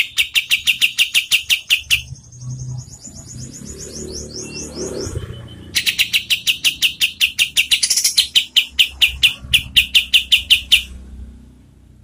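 Kapas tembak (olive-winged bulbul) singing its rapid 'shooting' rattle, about eight quick notes a second. It comes in two long bouts with a higher, thinner rising trill between them, and stops about a second before the end.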